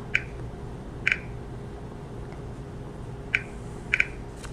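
Four short, sharp clicks, unevenly spaced, as PIN digits are tapped on the Smartmatic vote-counting machine's touchscreen keypad.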